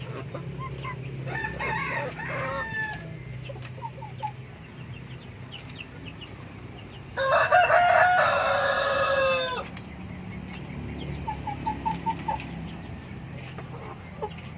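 A rooster crowing once, a long call of about two and a half seconds starting about seven seconds in and dropping in pitch at its end, with chickens clucking softly around it.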